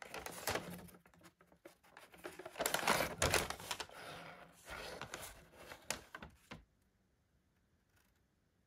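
A large folded paper instruction sheet rustling and crackling as it is unfolded and smoothed flat by hand, then going still about two seconds before the end.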